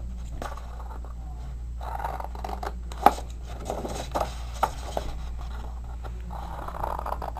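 Scissors cutting short slits into folded cardstock: a few crisp snips, the sharpest about three seconds in, amid the rustle of stiff paper being handled.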